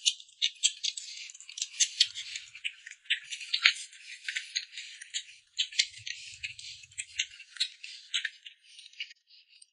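Close-miked mouth sounds of a man eating boiled dumplings: a rapid, irregular run of sharp, wet chewing smacks and clicks, thin and crisp with no low sound.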